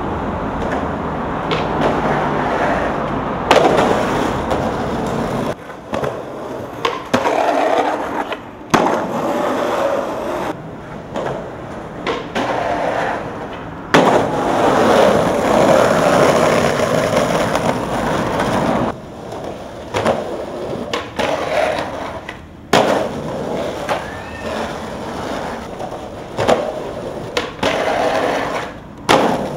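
Skateboard wheels rolling on concrete, broken by repeated tail pops, landings and sharp clacks of the board and trucks hitting the ground and ledges.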